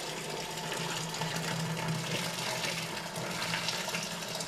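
Milky liquid pouring in a steady stream from a metal bucket into a plastic drum, a continuous gushing splash as the drum fills.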